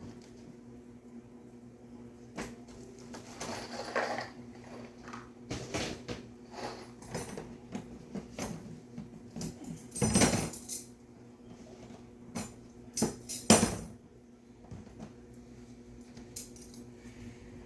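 Small metal hardware and tools clinking and rattling as they are rummaged through in a box. There is a louder clatter about ten seconds in and a few sharp knocks around thirteen seconds.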